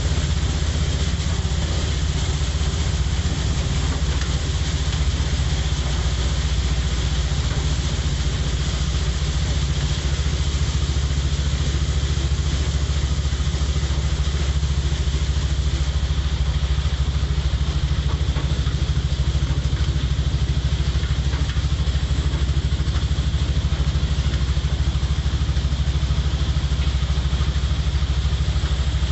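Steady drone of a small motor vehicle's engine, heard from on board as it drives along a rain-soaked road, over an even hiss of rain and wet road noise.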